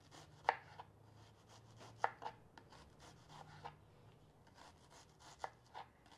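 Kitchen knife slicing a red onion thin on a wooden cutting board: soft, irregular taps of the blade on the board, the sharpest about half a second and two seconds in.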